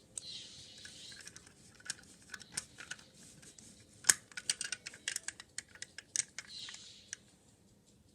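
Plastic Lego bricks clicking and rattling as they are handled and pressed together, with brief rustling between. The clicks come in a fast irregular string, thickest and loudest from about halfway through.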